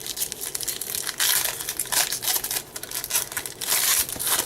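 Foil wrapper of a baseball card pack crinkling and crumpling in a run of loud, irregular bursts, the strongest about a second in, at about two seconds and near the end.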